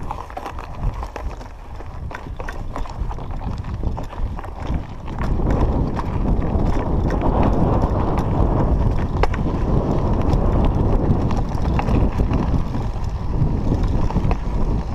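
Knobby 29er mountain-bike tyres rolling and crunching over loose gravel and stones, with the bike rattling and knocking over the bumps. The noise grows louder about five seconds in.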